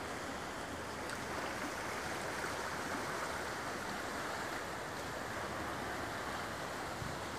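Steady rushing wash of sea waves along the shore, with no distinct breaks.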